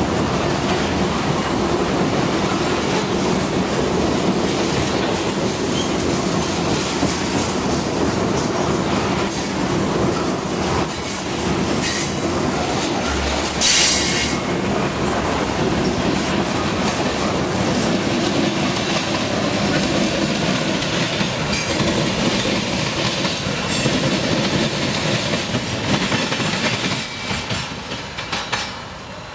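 Freight train of covered hopper cars rolling past close by, a steady rumble of the cars and wheels on the rails, with one short, loud burst about halfway through. The sound falls away near the end as the last cars pull off into the distance.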